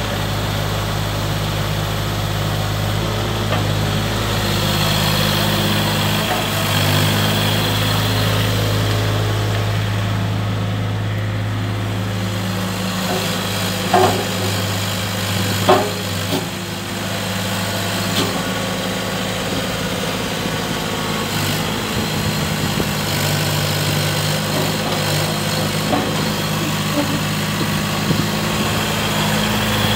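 JCB 8026 CTS mini excavator's diesel engine running steadily while the machine slews and works its boom, the engine note shifting a few times as the hydraulics take load. Two sharp knocks, under two seconds apart, come about halfway through.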